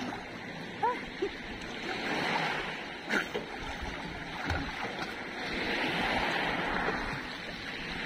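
Seawater sloshing and splashing around a swimmer doing breaststroke, swelling and easing with each stroke, with a couple of sharper splashes about a second and three seconds in.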